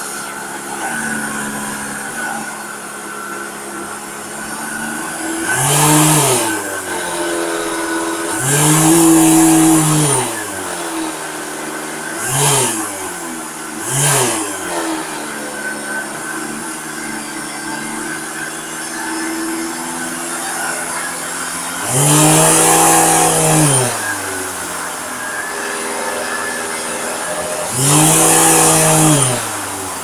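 LG 1800W canister vacuum cleaner running with a steady hum, its motor pitch rising and falling in about six louder surges that sound like a car engine revving. The owner suspects a ball bearing in the rotating ring is dragging with too much friction, possibly from dust, causing the vibration sound.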